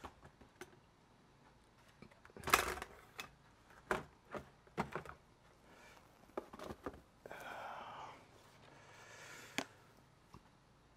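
Cardboard firework cake boxes being handled and set down on a wooden bench: scattered knocks and clicks, the loudest a few seconds in, and a scrape lasting about a second past the middle.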